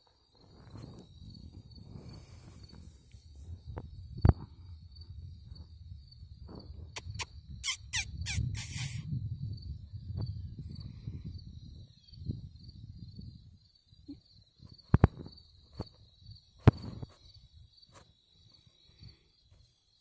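Field insects chirping steadily in a fast pulsing trill. Under it runs a low rumble of wind on the microphone that fades out about two-thirds of the way through. A few sharp knocks stand out as the loudest sounds, and there is a brief cluster of hissing rustles about eight seconds in.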